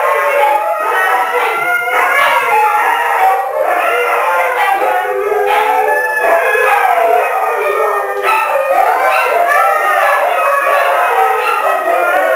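Several Siberian Huskies howling together, many voices overlapping and gliding up and down in pitch without a break.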